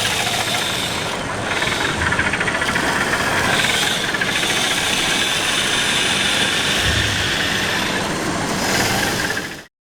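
Large-scale RC construction models working: a steady mechanical whine over an engine-like rumble. The sound cuts off suddenly near the end.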